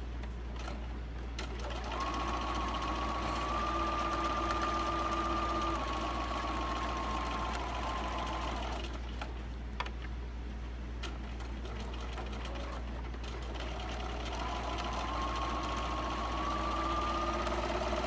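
Electric sewing machine stitching a seam: the motor whines steadily from about two seconds in until about nine seconds, stops, then starts again near the end with a slowly rising pitch.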